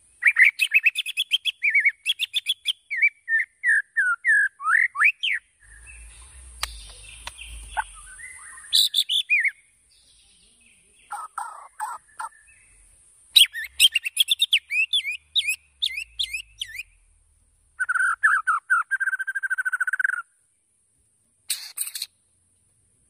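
White-rumped shama singing in bursts of quick, varied whistled notes that slide up and down, with short pauses between phrases and a fast buzzy trill a few seconds before the end.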